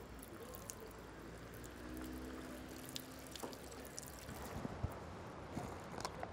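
Juice pouring from a carton into a disposable cup, a faint trickle.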